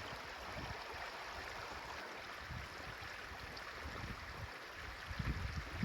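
Steady rush of running water, like a stream, with irregular low thumps that grow stronger near the end.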